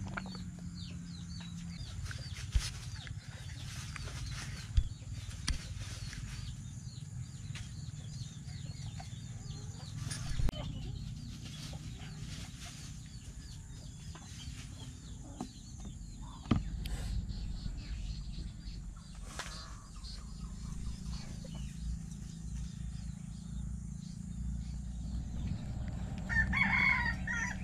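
Rooster crowing once near the end, over a steady low rumble with scattered faint chirps.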